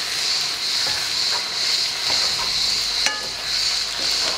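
Chopped zucchini pulp, spring onions, garlic and mint sizzling in olive oil in a frying pan while being stirred with a wooden spoon; a short knock of the spoon on the pan about three seconds in.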